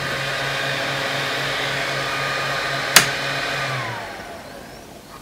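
3D printer's cooling fans running with a steady whirr. A sharp click of the power switch comes about three seconds in, and the fans then spin down with a falling pitch and stop.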